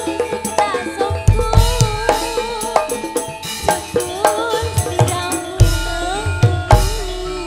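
Javanese gamelan music for a tayub dance, played live through a PA: quick hand-drum (kendang) strokes over ringing metallophone tones and a wavering melody line, with a deep boom three times.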